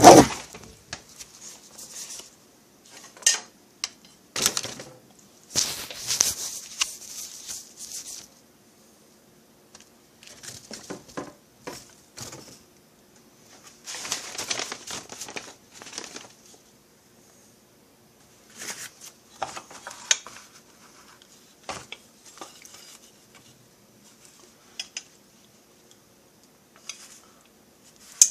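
Metal tools and parts being handled on a workbench: irregular clinks, clatters and rustling in short spells with quiet gaps between.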